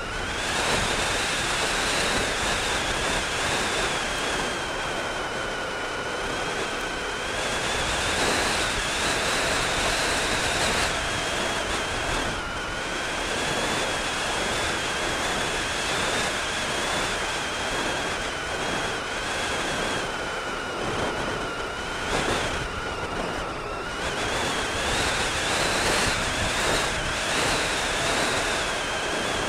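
Wind rushing over the microphone of a camera in flight, with a steady high whine that wavers slightly in pitch.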